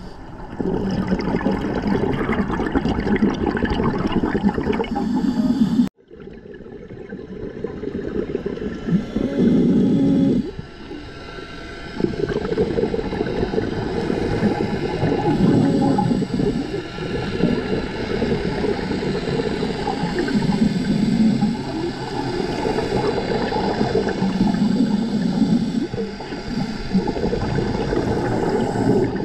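Muffled underwater rumble and gurgle of a scuba diver's regulator breathing, with surges of exhaled bubbles every few seconds. The sound cuts out abruptly about six seconds in and comes back quieter.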